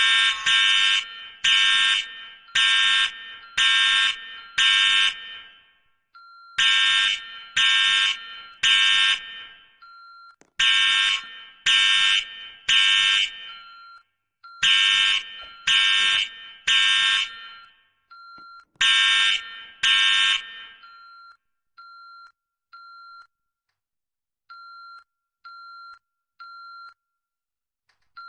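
Electronic fire alarm sounding a temporal-three pattern: groups of three loud, blaring pulses about a second apart, with a fainter high beep in the gaps. The loud pulses stop about 20 seconds in, leaving only the faint beeps, still in threes.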